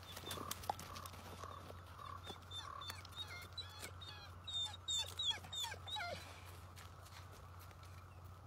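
Wolves whining and yipping in a quick run of short cries that slide down in pitch, clustered in the middle of the stretch.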